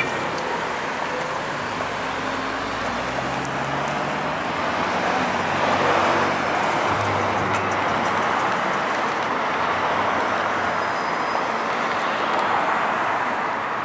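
Cars driving past over a railroad grade crossing, tyre and road noise swelling as they pass, about halfway through and again near the end.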